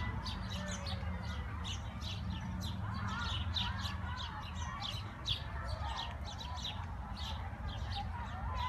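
A flock of sparrows chirping busily, many short chirps overlapping at several a second, with a steady low rumble underneath.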